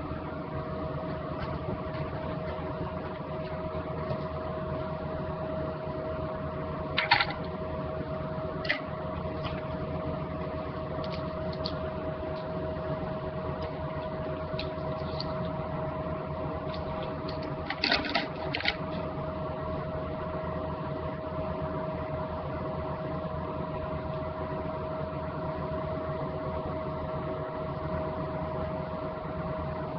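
A steady machine hum with one strong constant tone, broken by a few short knocks and clicks, about 7 seconds in and again around 18 seconds in.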